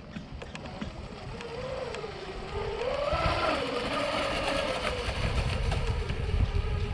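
Twin electric motors of a dual-motor RC speedboat whining as it runs, the pitch climbing about three seconds in and easing back down, heard from the bank.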